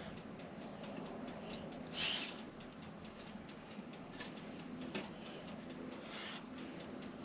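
Crickets chirping steadily at night, a high even chirp repeating about two to three times a second over a low hum, with two short hissing bursts about two and six seconds in.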